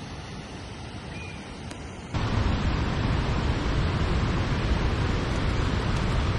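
Steady rush of fast-flowing mountain water. It is softer at first, then about two seconds in it jumps abruptly to a much louder, fuller rush that holds steady.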